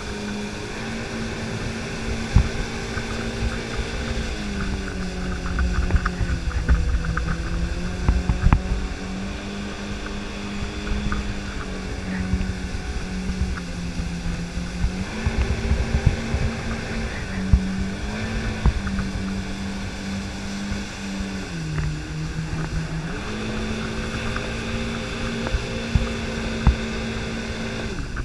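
Motorboat engine running at towing speed. Its pitch sags and climbs several times as the revs change, over a steady rush of wind and churning wake water, with occasional sharp thumps.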